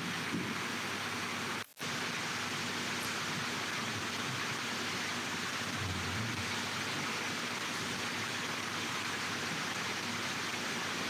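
Steady, even background hiss with no speech, cutting out for an instant just under two seconds in.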